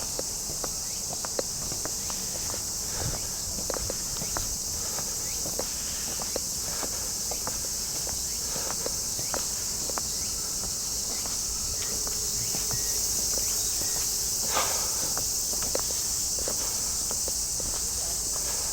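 A steady, high-pitched chorus of summer cicadas, with a person's footsteps ticking along at walking pace.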